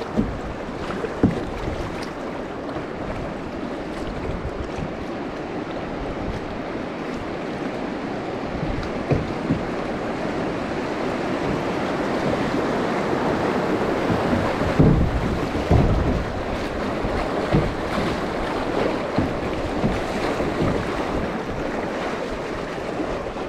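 Rushing water of a shallow river riffle around a drifting kayak, growing louder through the middle, with a few short knocks on the hull.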